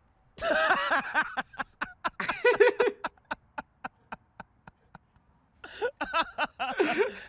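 People laughing hard after a golf swing: a loud burst of laughter breaks out suddenly about half a second in, runs on in quick repeated "ha" pulses that gradually thin out, and picks up again near the end.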